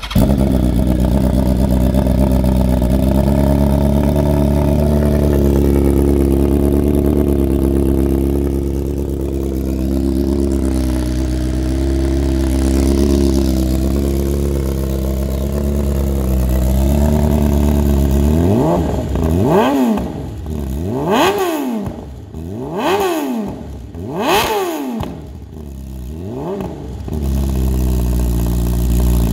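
BMW S1000RR's 999cc four-cylinder engine breathing through an Akrapovic GP shorty full-system exhaust. It idles steadily, then is blipped hard five times in quick succession, each rev rising sharply and falling straight back, before it settles to idle again.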